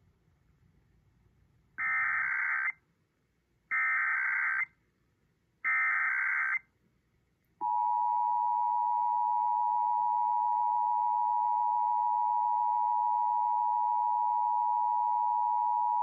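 Emergency Alert System required monthly test heard through a radio: three short bursts of SAME digital header data, each under a second and about two seconds apart, then the steady EAS two-tone attention signal starting about seven and a half seconds in.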